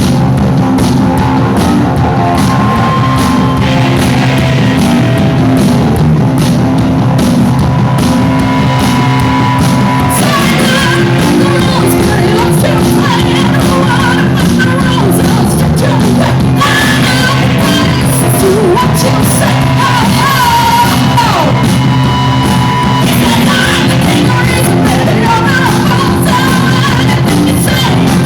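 Live punk rock band playing loudly with guitar, bass and drums. A singer's shouted vocals come in about ten seconds in.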